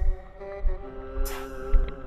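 Background music with held chords over a low, regular beat, and a short swish about two-thirds of the way through.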